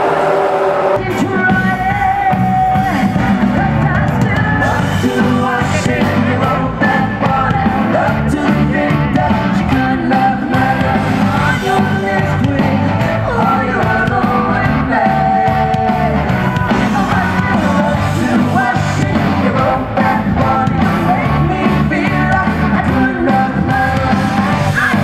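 Live pop-rock concert heard from the crowd: a female singer over a full band with a heavy steady beat. In the first second, the tail of a Formula 1 car passing fades out as the music cuts in.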